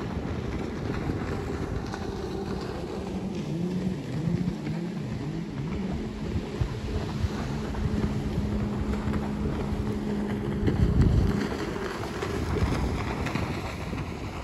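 Jet ski engine running as the craft speeds across the bay, a steady drone that wavers a little in pitch and fades out about three quarters of the way through, with wind buffeting the microphone throughout.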